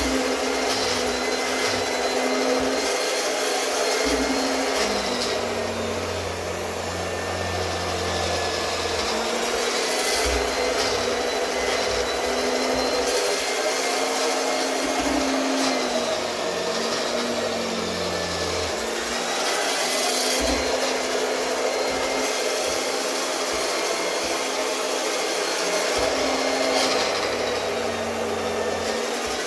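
Octa RC-100 electric round-knife cloth cutting machine running steadily, its motor whining as the blade cuts through fabric.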